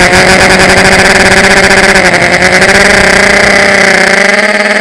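Brushless electric motors and propellers of a small RC drone, heard loud and close from its onboard camera, giving a steady buzzing whine whose pitch wavers a little as the throttle shifts.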